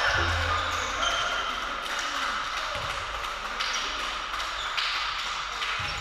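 Volleyball hall ambience: noise from players and onlookers dying down, with a few thuds.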